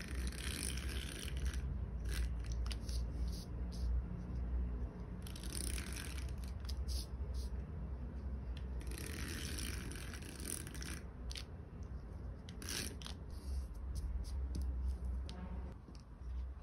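Glue stick rubbed across the back of a paper ticket in several separate passes, with paper rustling and light taps as the pieces are handled and laid down.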